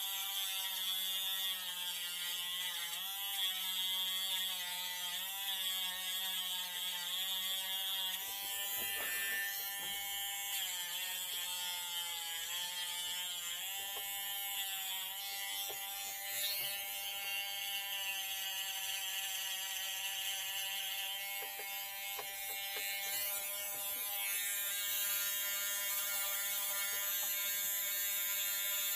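Handheld mini rotary tool running with a steady high whine, its pitch dipping and wavering as it is pressed against the work, grinding down the nodes of a bamboo rod tip.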